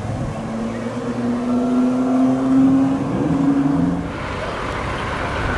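A supercar's engine accelerating, its note climbing slowly in pitch and getting louder for about three seconds, then falling away about four seconds in.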